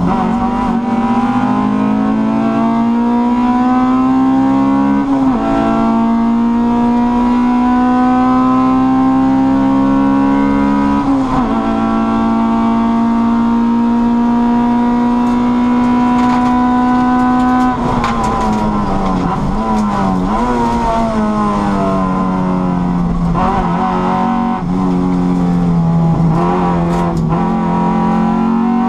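In-car sound of a Honda Cup race car's four-cylinder engine under full throttle. Its pitch climbs and drops sharply at two upshifts, about five and eleven seconds in, then holds at high revs. About eighteen seconds in the revs fall and waver through braking and downshifts, and they climb again near the end.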